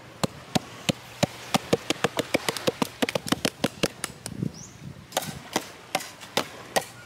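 Upturned plastic sand bucket tapped on its bottom in a long run of quick, irregular taps, with a short pause a little past halfway, to loosen the packed sand inside before it is lifted off as a sand castle.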